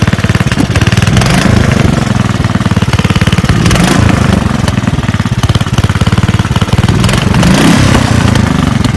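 Riding lawnmower engine running steadily close by, with a fast, even firing rhythm and three brief louder bursts of noise.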